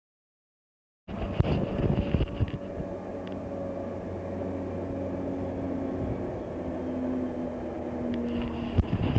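Diesel engine of a loaded Moxy articulated dump truck running as it drives slowly over a rough, rocky new road, with sharp clanks and rattles about a second in and again near the end. The sound cuts in suddenly about a second in.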